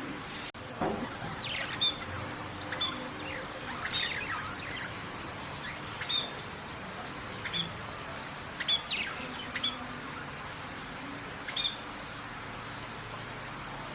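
Birds chirping: short, sharp high calls, some sliding downward in pitch, repeated at irregular intervals over a steady background hiss.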